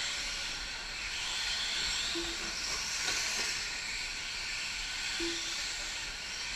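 Several 1/10-scale electric four-wheel-drive short-course RC trucks racing on a dirt track: a steady high-pitched hiss and whine of motors and tyres. Two short low tones sound, about two seconds in and again about five seconds in.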